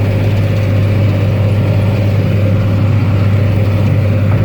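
Tractor engine running steadily while pulling a John Deere 567 round baler through hay, a constant low drone with a steady higher tone above it.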